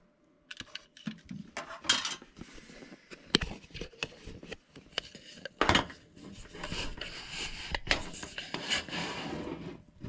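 Handling noise from a camera being moved about and propped up: a run of knocks, clatter and rubbing against hard objects, with several sharper knocks.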